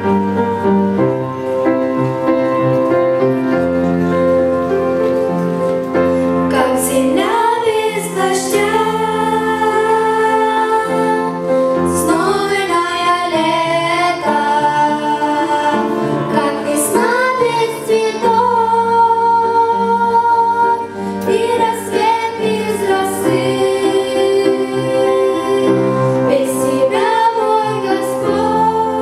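Children's choir singing a Russian-language gospel song over instrumental accompaniment. The accompaniment plays alone at first, and the children's voices come in about six and a half seconds in.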